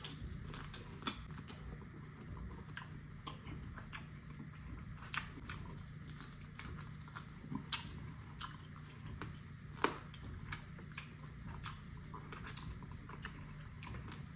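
A person chewing food close to the microphone, with scattered irregular wet mouth clicks and smacks over a faint steady low hum.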